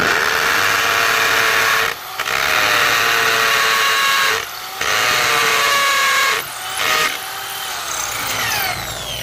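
Corded 1/2-inch hammer drill boring into the mortar joint of a brick wall. It runs hard in three stretches, with brief let-ups about two and four and a half seconds in, then runs under lighter load with its pitch falling near the end.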